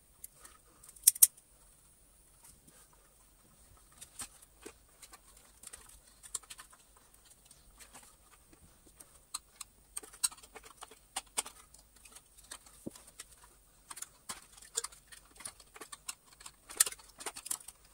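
Irregular small clicks and taps of plastic vacuum-cleaner parts being handled and fitted together, with two sharp clicks about a second in and busier bursts of clicking later on.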